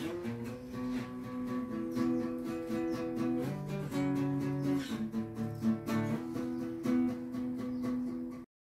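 Guitar being played, a run of plucked notes and changing chords; it cuts off suddenly near the end.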